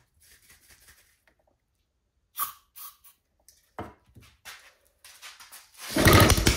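A few light clicks and knocks, then about six seconds in a homemade 3D-printed 180cc single-cylinder engine is pulled over and fires, running with a loud, fast rattle.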